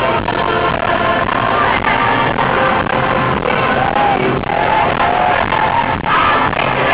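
Loud music with singing, heavily distorted.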